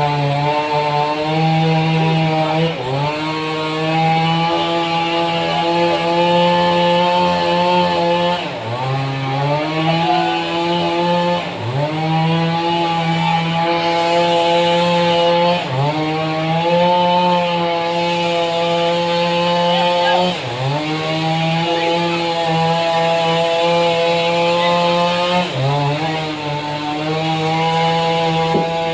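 Engine-driven sawmill saw cutting through a large trembesi (rain tree) log, running loud and steady. Every few seconds its pitch dips sharply and climbs back as the engine takes the load of the cut.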